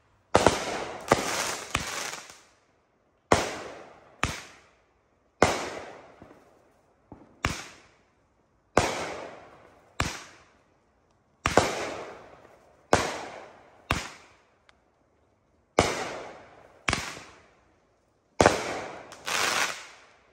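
Consumer aerial fireworks shells bursting overhead: about fifteen sharp bangs, mostly a second or so apart with some in quick pairs, each trailing off in an echo.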